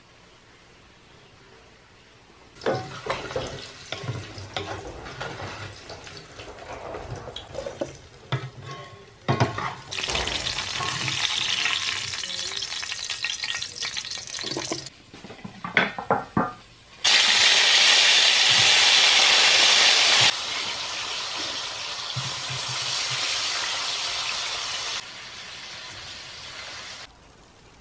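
A metal spoon clicking and scraping in a bowl as minced meat is stirred, then food frying in a wide pan of hot oil with a steady sizzle. The sizzle is loudest for about three seconds past the middle, then settles and drops near the end.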